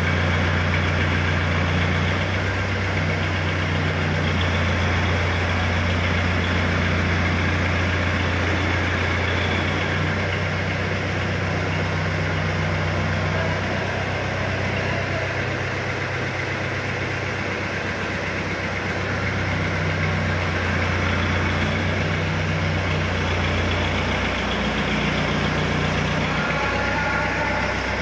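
Diesel engine of an ACE FX150 pick-and-carry hydra crane running steadily with a low hum while its hydraulic boom holds a steel overhead-crane girder aloft. The engine note eases slightly about halfway through, then picks up again.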